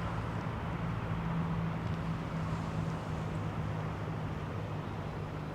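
A steady low mechanical hum over a rushing noise, like a running engine or motor traffic.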